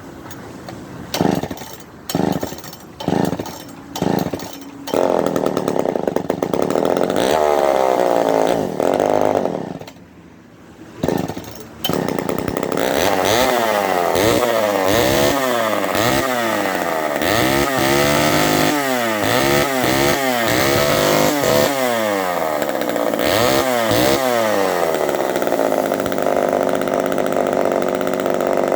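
Poulan 306A two-stroke chainsaw cold-started, its carburettor freshly rebuilt: several quick pulls on the starter cord, the engine catches and runs for a few seconds, dies, and fires again on another pull. It is then revved up and down repeatedly before running steadily at high speed near the end.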